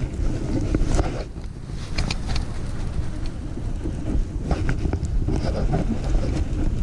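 Wind buffeting the microphone in a steady low rumble, with a scattering of light clicks and knocks from handling the baitcasting rod and reel in the boat.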